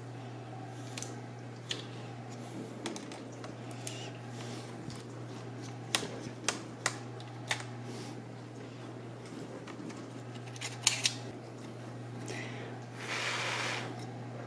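Small sharp clicks and taps of a screwdriver and fingers on the plastic and metal of an opened laptop as its cooling fan is worked loose and lifted out, the loudest clicks coming in a cluster about six to seven seconds in and again around eleven seconds. A short rushing noise about thirteen seconds in.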